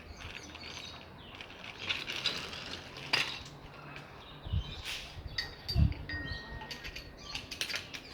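Metal parts and tools clinking and knocking as a washing machine is put back together, with two dull thumps about four and a half and six seconds in.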